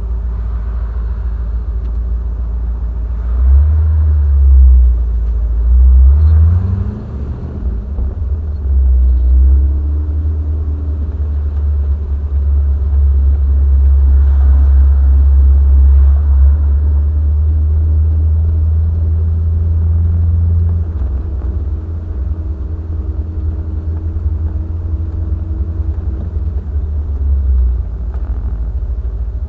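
Triumph TR7's 4.6-litre V8 running with a deep, steady rumble. The revs climb sharply about seven seconds in, and the rumble eases a little past twenty seconds.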